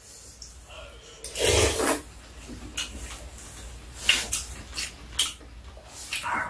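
Two people eating stew from ceramic bowls with metal spoons and chopsticks: a loud rasping sound about a second and a half in, then several short clicks of utensils against the bowls.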